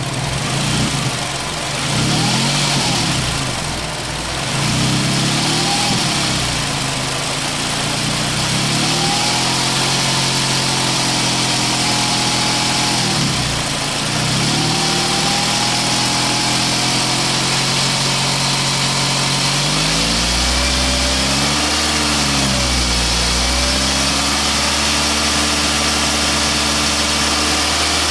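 Car engine being run up slowly from idle on the throttle, its speed rising and falling several times and held steady for a stretch in the middle. A deeper rumble comes in over the last third.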